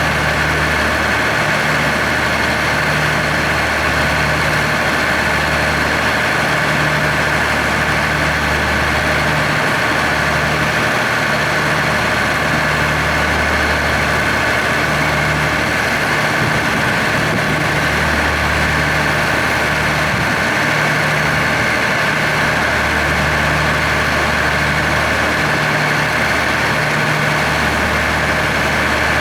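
Diesel-electric locomotive of a waiting freight train idling steadily, a low engine throb pulsing roughly once a second under a steady higher hum.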